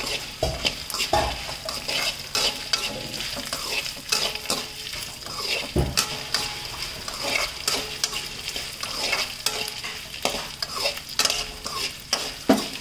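Dried red chillies and whole spice seeds frying in oil in a steel kadai, with a steady sizzle and the frequent scrape and tap of a slotted spatula stirring them around the pan.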